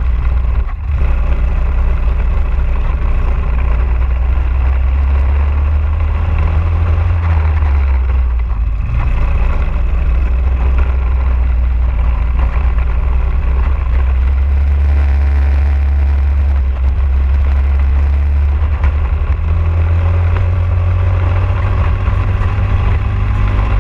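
Briggs & Stratton LO206 single-cylinder four-stroke kart engine running hard on track, heard close up from the kart; its revs dip briefly about a second in and again around eight seconds in, then climb back up.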